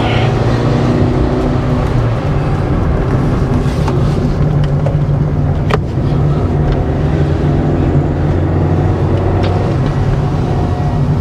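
Car engine running steadily with road and tyre noise, heard from inside the cabin while driving, with one sharp click about six seconds in.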